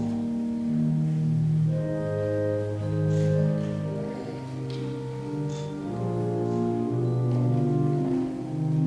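Church organ playing slow, held chords that change every second or so, in a large reverberant church.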